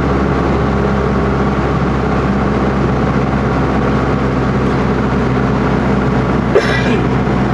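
A small airplane's engine and propeller droning steadily, heard from inside the cabin during a night landing approach. A short click cuts in about six and a half seconds in.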